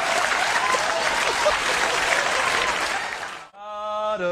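Studio audience applauding and laughing. It cuts off abruptly about three and a half seconds in, and a man's voice holds one long sung note near the end.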